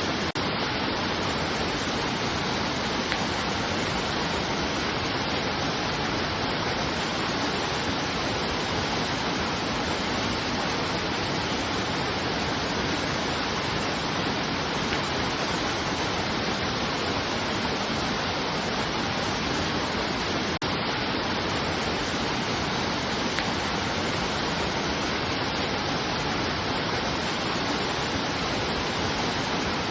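Steady, even rushing of water, with a momentary drop in level about two-thirds of the way through.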